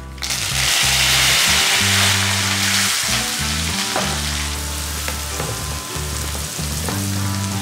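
Hot oil sizzling as curry leaves drop into it, flaring up suddenly just after the start and loudest over the first couple of seconds, then chopped onion frying in the oil and being stirred with a wooden spatula, sizzling steadily.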